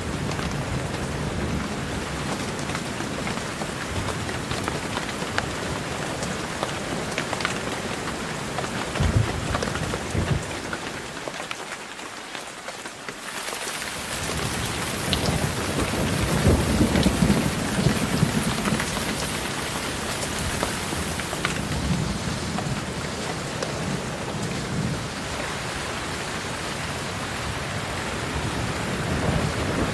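Heavy rain falling steadily, with low thunder rumbling several times. The loudest swell comes a little past halfway, and the rumble briefly drops away about twelve seconds in.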